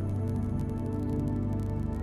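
Calm new-age background music of sustained, held notes.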